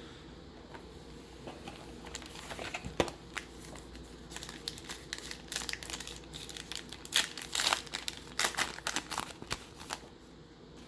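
Plastic wrapper of a pack of baseball cards crinkling irregularly as it is torn open and crumpled. The crinkling grows louder and busier in the second half, then stops shortly before the end.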